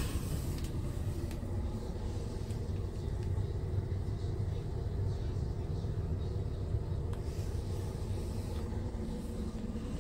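Scania P380 tipper truck's diesel engine idling, a steady low rumble heard inside the cab.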